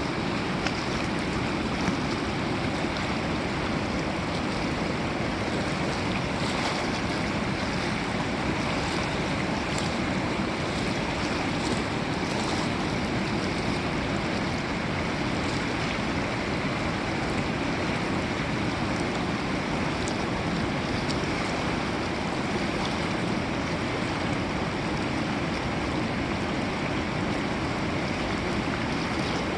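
A river's flowing water making a steady, even rushing sound.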